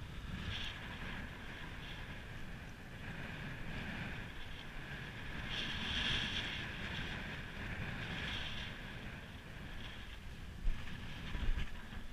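Wind buffeting the microphone over choppy sea washing against a harbour wall, the wash swelling and fading every couple of seconds. A couple of sharp knocks come near the end.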